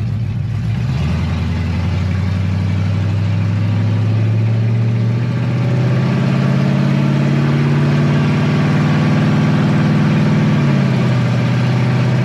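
Chevy C-10 pickup's engine running with no mufflers on the exhaust, loud inside the cab as the truck drives. The pitch rises about a second in as it pulls away, holds steady, then steps down near the end.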